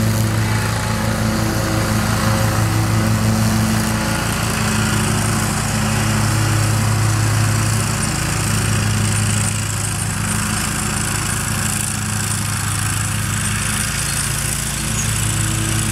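John Deere 915B zero-turn mower's 25-hp Kohler engine running steadily under mowing load as the mower passes close by and moves away, a little quieter from about ten seconds in.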